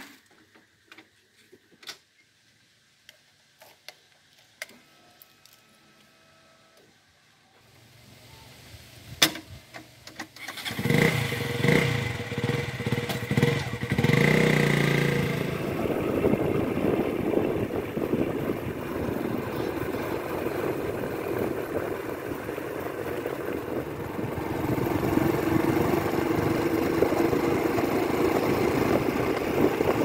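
KTM Duke motorcycle being push-started: faint clicks and a rising rolling rumble, then the engine catches about ten seconds in and is revved a few times. After that it runs steadily under way, mixed with road and wind noise.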